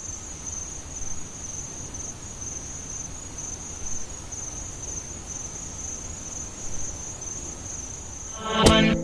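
Crickets chirping in a steady high trill over a low background rumble. Loud music with a strong beat cuts in near the end.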